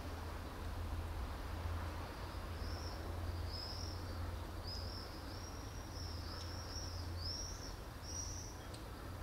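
A small bird chirping: a string of short, high, arching chirps beginning a couple of seconds in and repeating irregularly, over a steady low background hum.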